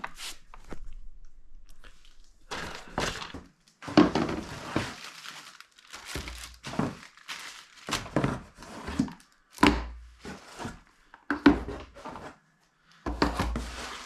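Packages of bike parts being unpacked: cardboard boxes and packaging handled with dull thunks, with plastic wrapping crinkling and tearing in irregular bursts.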